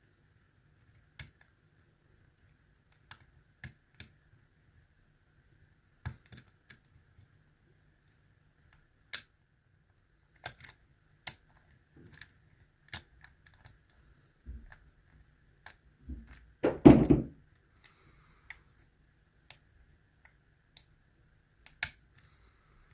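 Dimple pick working the pins of a Mul-T-Lock Interactive euro cylinder under tension: scattered sharp metallic clicks as pins are lifted and set, with one louder knock about seventeen seconds in.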